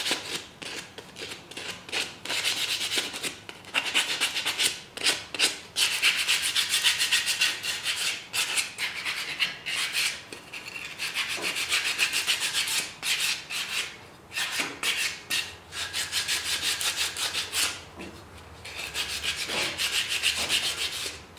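100-grit sandpaper rubbed by hand along a wooden knife handle in quick back-and-forth scraping strokes, with a couple of short pauses. It is coarse sanding to take off machining marks and round the handle's edges.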